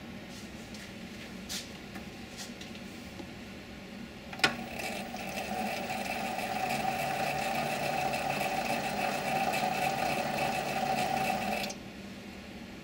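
7x16 mini lathe on a thread-cutting pass. A steady low hum and a few light clicks, then a sharp click about four seconds in. Then the carriage feeds under power with a steady mechanical whine for about seven seconds, which cuts off suddenly near the end.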